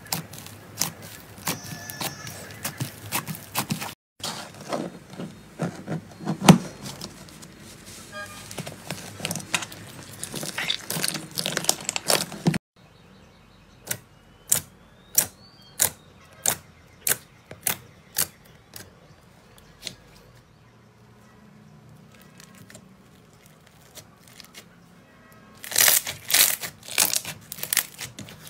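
Hands squishing and poking slime, with many sticky clicks and pops. Then clear glitter slime is pressed with fingertips, giving single sharp pops about every half second, and a denser run of pops near the end as it is pulled open.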